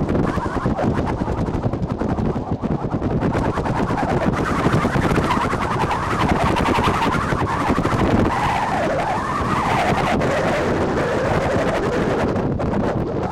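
Wind buffeting the microphone with a constant rough rumble during an outdoor football-match recording, and a wavering pitched sound rising and falling through the middle.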